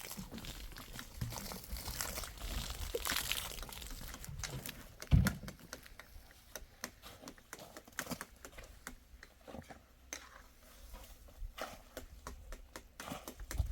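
Irregular light clicks and taps, with one heavy thump about five seconds in.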